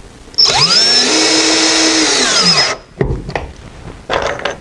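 Cordless screw gun driving a stainless steel screw through a plastic pipe adapter ring into a pilot hole in a plastic septic tank: the motor whines up quickly, runs steadily for about two seconds, then winds down.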